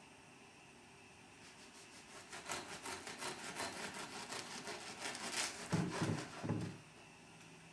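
A knife sawing back and forth through a loaf of homemade rye bread, a run of rasping strokes starting about a second and a half in, followed by a few dull knocks near the end.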